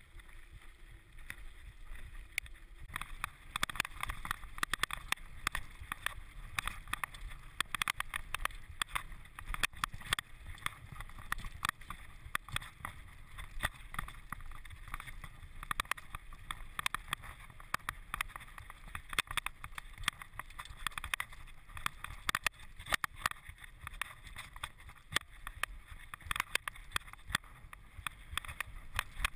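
Mountain bike rattling and knocking over a rough dirt track, with dense irregular clatter from the bike and the camera on it over a low rumble of wind on the microphone. The clatter grows busier about three seconds in.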